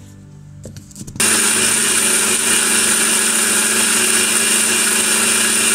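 An electric mixer grinder (Butterfly), with a steel jar, starts suddenly about a second in and runs steadily at full speed, grinding grated coconut into a thick paste. It comes after a few light clicks.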